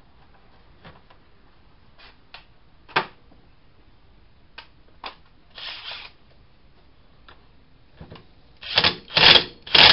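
A few light clicks and knocks of metal parts handled on a bench, then near the end a Kobalt 3/8-inch cordless impact wrench hammering in three short bursts, running down the nut that holds the crank arm on the wiper motor's shaft.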